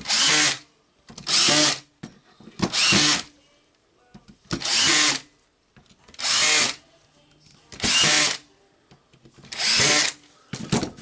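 Power driver driving housing screws in one after another: eight short runs of the motor, each under a second, with brief pauses between them.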